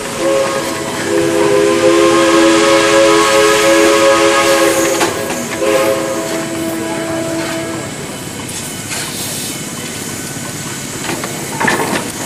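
Steam traction engine's whistle blowing one long chord of several tones for about eight seconds, then fading into a steady hiss of steam.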